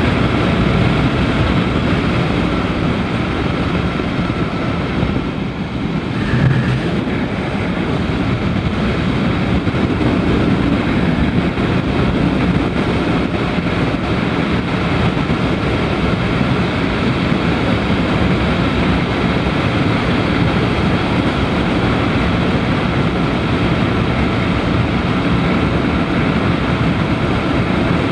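Daelim Daystar 125cc V-twin motorcycle running at a steady cruising speed, its engine mixed with wind and tyre rush. The sound dips briefly about five seconds in, then settles back to the same steady level.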